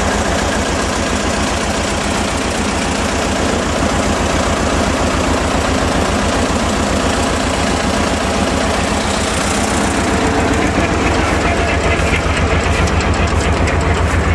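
Engine idling steadily with a fast, low throb, running a hydraulic firewood splitter.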